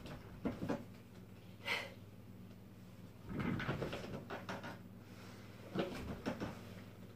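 Rolling office chair creaking and knocking several times as a person sits down onto it and rises back off it, the longest stretch of rustling and creaking around the middle as she sits. A steady low hum runs underneath.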